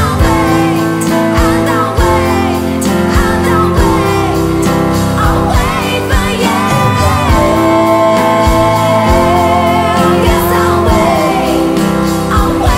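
A song: a singing voice carrying a melody over instruments, with a steady drum beat.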